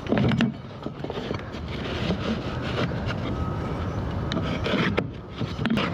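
Scraping and rubbing against wood, with scattered light knocks.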